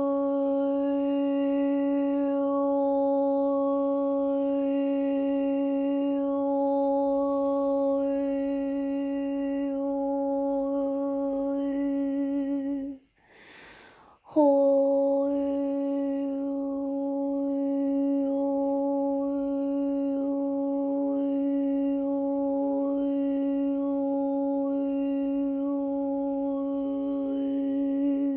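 A woman's voice toning: one long steady note at a single pitch, the vowel shaped slowly as it is held. About halfway through it breaks for a quick breath, then a second long note at the same pitch is held until the end.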